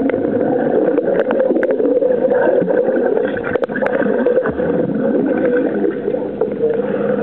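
Swimming-pool water heard from below the surface: a steady muffled rushing and gurgling of water and swimmers' bubbles, with a few short clicks in the middle.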